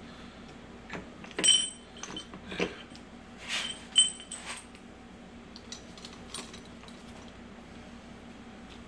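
Steel manual-transmission parts (gears and shift-fork hardware) clinking against each other as they are handled: a handful of sharp metallic clinks with a brief ring, the loudest about a second and a half and four seconds in.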